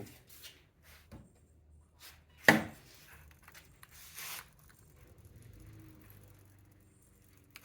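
A single sharp knock about two and a half seconds in, the loudest sound, followed by a brief hiss a couple of seconds later, with faint small clicks and rubbing around them.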